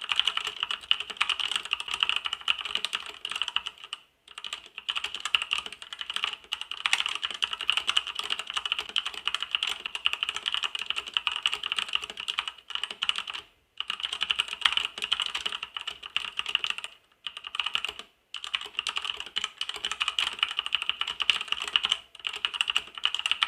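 Continuous fast typing on an E-YOOSO K620 mechanical keyboard with red (linear) switches: a rapid, even patter of keystrokes, pausing briefly about four, thirteen and seventeen seconds in. The red switches are dampened and very quiet.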